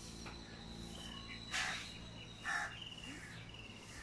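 Outdoor morning ambience: small birds chirping with short trills over a thin steady high note. Two louder, brief noisy sounds come about a second and a half and two and a half seconds in.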